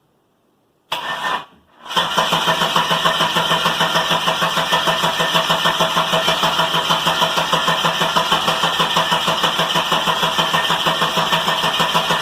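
Holden VS Commodore's starter motor cranking the engine over without it catching: a short burst of cranking about a second in, then about ten seconds of steady, rhythmic cranking that stops abruptly. The engine does not fire, as on a long-parked car with a suspected electrical or fuel-delivery problem.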